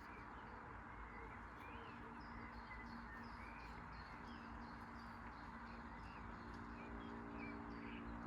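Small birds chirping, short notes repeating about twice a second, over a steady low hum.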